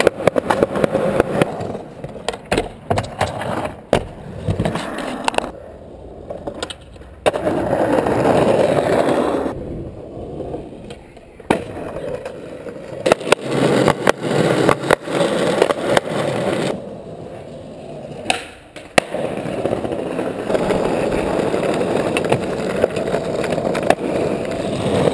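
Skateboard wheels rolling on concrete and asphalt, with sharp clacks from tail pops and board landings. The rolling stops and starts abruptly several times.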